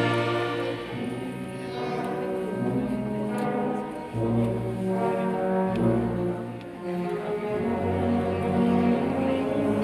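A student wind band playing, brass to the fore: sustained chords that ease off and swell again twice.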